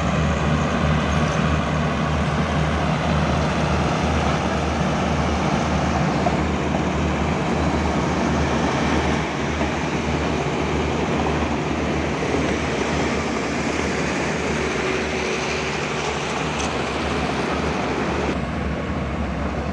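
Excavators' diesel engines running as the machines travel, a steady heavy rumble with no break.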